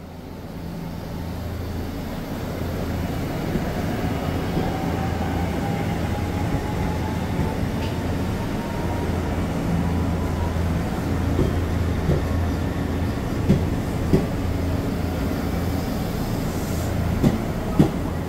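Nishitetsu 6050-series electric train pulling out of the station: a steady low motor hum that grows louder over the first few seconds, with a faint whine rising slowly in pitch. Near the end come a few sharp clacks from the wheels.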